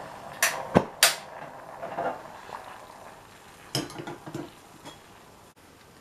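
Stainless steel saucepan clanking on the metal grate of a portable gas stove as it is lifted off, then knocking down onto a wire trivet: three sharp knocks within the first second and a half, a softer scrape, and another short cluster of knocks about four seconds in.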